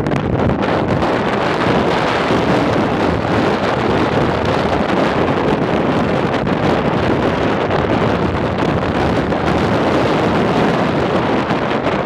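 Strong, gusty wind buffeting the microphone, a loud steady rumbling roar, which may carry the hiss of blowing sand beneath it.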